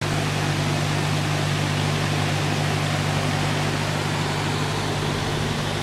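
A canal boat's engine idling with a steady low hum, over the even rush of water pouring through lock gates.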